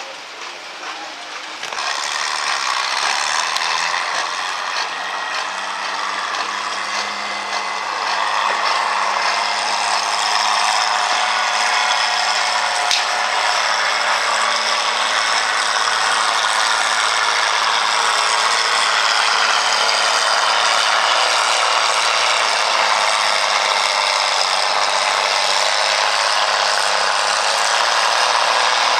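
Farmall 460 tractor in a pulling run, its engine working under load with a steady mechanical gear clatter. The noise builds about two seconds in and again a few seconds later, then holds.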